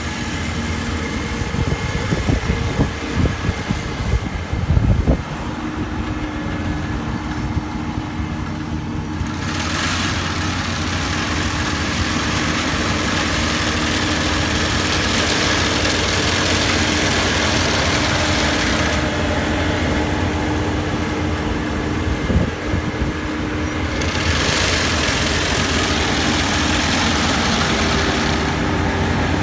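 Engine of a small rice combine harvester running steadily, with a few knocks in the first five seconds and one more about twenty-two seconds in. Its higher hiss drops away twice for several seconds, then returns.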